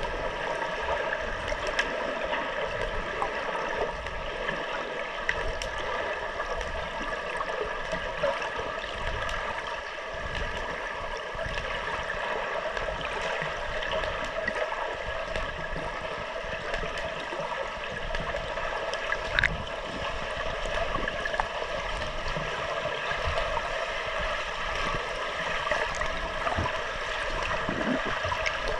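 Underwater ambience of a swimming pool picked up by a submerged camera: a steady watery hiss and gurgle with several steady tones running through it and occasional faint clicks.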